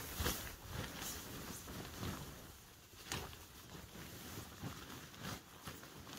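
Sleeping bag and bivy bag fabric rustling and shuffling as a person sits up and moves about inside them, with irregular rustles and soft knocks.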